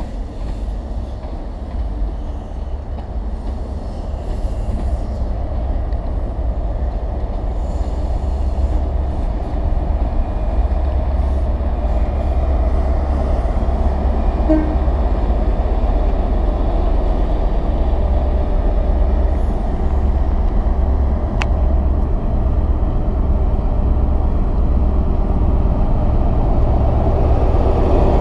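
First Great Western Class 43 HST power car's diesel engine and wheels running as the train draws in alongside the platform. It is a low, steady rumble that grows steadily louder.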